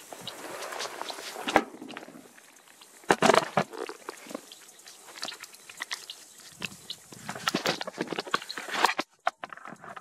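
Handling noise from a phone camera being moved about: irregular clicks, knocks and rustles, with louder knocks about one and a half seconds in, around three seconds in and just before nine seconds.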